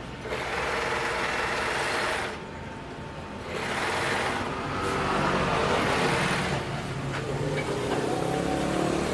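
Janome NS 385 sewing machine running on its external motor and stitching: one burst of about two seconds, a short pause, then it starts again about three and a half seconds in and keeps sewing.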